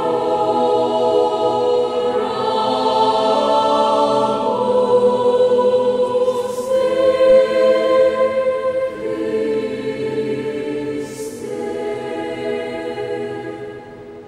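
Choir singing long, held chords in several parts, with two short breaks about halfway through and near the end. The sound dies away over the last couple of seconds.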